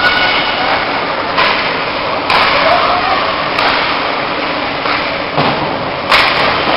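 Ice hockey rink sounds: a steady hiss of skates and crowd voices, broken by several sudden knocks from sticks, puck and boards. The loudest knock comes near the end.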